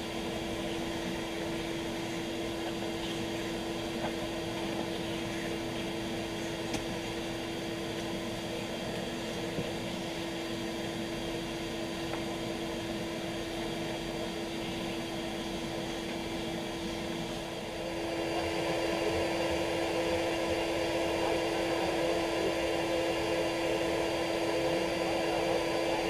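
Bee vacuum running steadily, its hose drawing bees off a freshly cut piece of comb. The hum grows louder with added tones about two-thirds of the way through.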